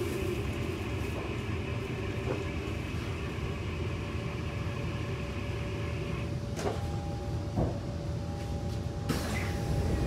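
Kawasaki C151 metro train heard from inside the car: the steady rumble of the train running as it draws into the station. A high whine fades out about six seconds in, a couple of knocks follow, and a sudden hiss of air comes near the end.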